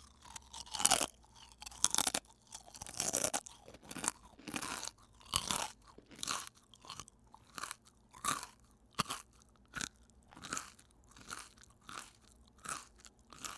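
A person biting and chewing potato chips close to the microphone: loud crisp crunches in the first seconds, then a steady rhythm of chewing crunches that grow softer toward the end.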